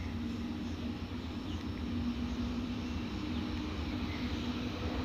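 WAP-7 electric locomotive hauling an express train on its approach: a steady hum over a low rumble, slowly growing louder as it nears.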